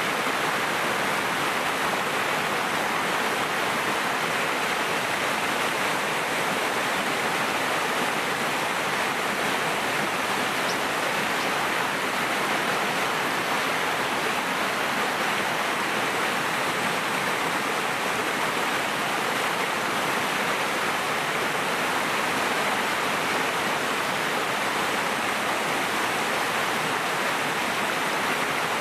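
Flowing water rushing steadily: an even, unbroken hiss with no let-up.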